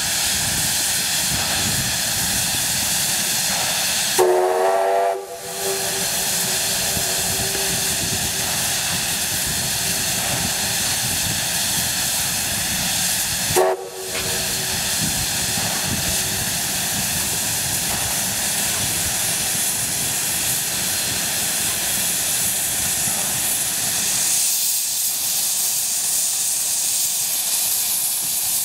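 Steam locomotive, an AB-class 4-6-2, standing with a steady loud hiss of steam, sounding its whistle twice: a blast about four seconds in and a shorter one around fourteen seconds. Near the end the hiss turns harsher and brighter as steam blasts from the open cylinder drain cocks.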